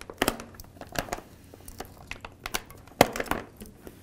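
Plastic over-laminate film crackling and crinkling in irregular bursts as it is peeled from its release liner and handled by hand. The loudest crackle comes about three seconds in.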